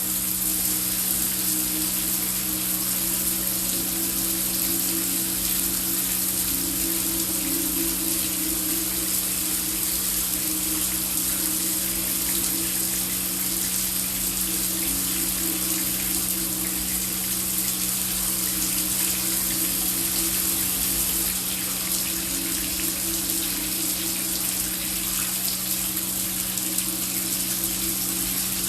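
Heavy rain falling as a steady, even hiss, with a low steady drone of background ambience underneath.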